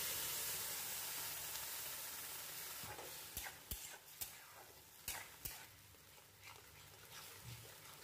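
Boiled masoor dal poured onto fried taro leaves in a hot kadai, sizzling, the sizzle dying down over the first few seconds. Then a metal spatula stirs the mixture, with scattered knocks and scrapes against the pan.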